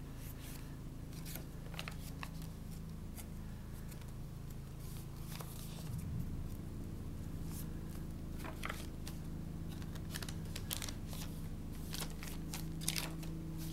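Paper pages of a thick handmade junk journal being turned and handled by hand, giving scattered short rustles and crinkles over a steady low hum.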